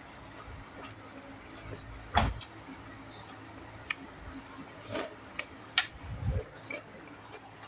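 Someone eating: scattered small chewing and mouth clicks, with two louder knocks about two seconds and six seconds in.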